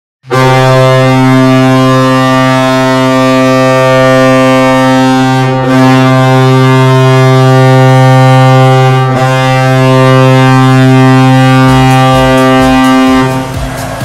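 Colorado Avalanche arena goal horn blasting one long, deep, steady tone for about thirteen seconds. Near the end it cuts off and the team's goal song starts, music with a steady beat.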